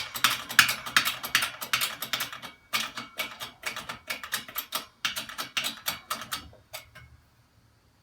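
Rapid clicking in three runs of about two seconds each, stopping about seven seconds in, from a 20-ton hydraulic shop press being worked down to push out a seized steering shaft.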